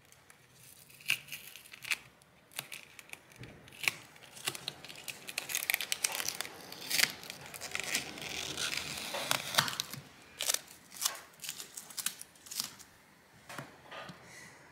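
Adhesive tape being peeled off and crinkled by hand: irregular crackling, tearing and sharp snaps, densest in the middle.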